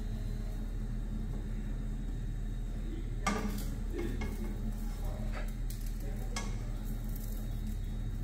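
A pancake frying in a nonstick pan while a spatula scrapes under it and taps the pan, giving a few sharp clicks between about three and six and a half seconds in, over a steady low hum.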